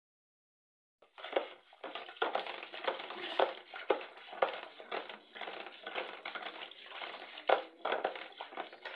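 A wooden churning stick is twirled between the palms in a plastic bucket of curd, churning lassi. It makes a continuous, uneven churning noise with frequent sharp knocks and starts about a second in.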